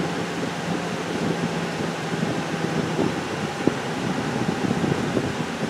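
Steady cabin noise of a moving car: engine and tyre noise, with a low hum that drops out about halfway through.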